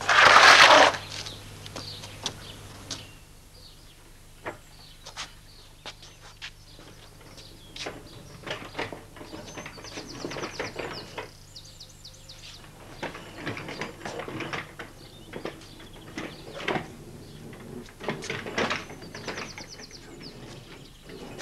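Scattered knocks and clicks of wooden panels and fittings being handled on a small home-built wooden guards van, after a loud rushing noise lasting about a second at the very start. Twice, a short rapid high trill sounds in the background.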